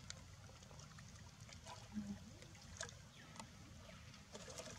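Faint water sounds of a monkey swimming in a pool: soft lapping and trickling, with a few small drips or ticks.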